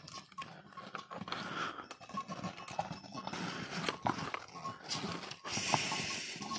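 Hooves of laden pack horses clopping and knocking on a rocky stone trail as the string walks past, irregular and close. About five and a half seconds in comes a louder hissing rush lasting about a second as one horse passes right by.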